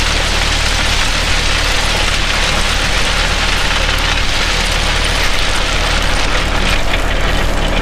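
John Deere 5055E tractor's diesel engine running steadily, with a constant hiss of gravel and rock being dragged and spread by a land-plane grading scraper.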